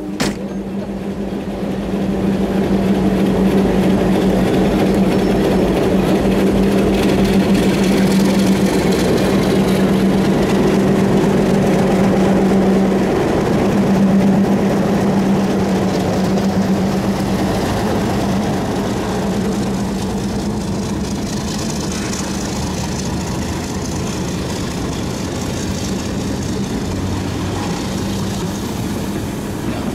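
Diesel locomotive engine running with a steady low drone, a little louder for the first half.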